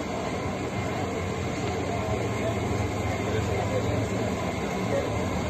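Steady street background noise with a low, even mechanical hum that grows stronger about a second and a half in.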